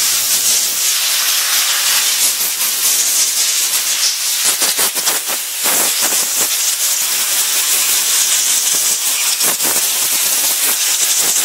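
Compressed air from a handheld air blow gun, blown over a rifle to dry off brake-cleaner residue. It makes a loud, steady hiss that wavers in strength, with short gusts about halfway through and again near the end.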